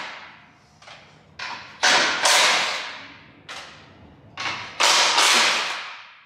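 Cordless impact wrench undoing the nuts that hold the car's rear support bar, in short trigger blips and then two longer hammering bursts, about two seconds in and again about five seconds in.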